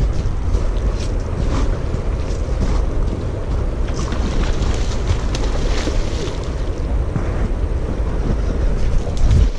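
Wind buffeting the microphone over the wash of river water at the shore, with a few short splashes from a hooked steelhead thrashing in the shallows.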